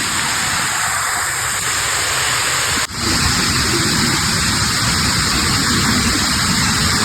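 Steady, loud rushing noise, broken by a brief dropout about three seconds in.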